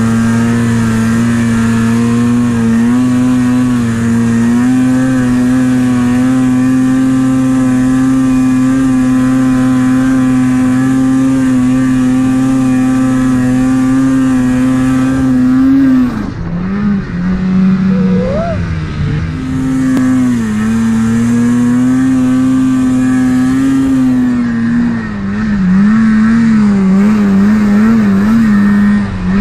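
Polaris snowmobile engine held at high, steady revs while ploughing through deep powder. About halfway through the revs drop and waver for a few seconds, then climb back up, and near the end they rise and fall several times in quick succession.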